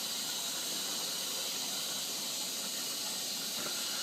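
Bendix 7128 washing machine taking in water at the start of a wash: a steady hiss of water running into the drum.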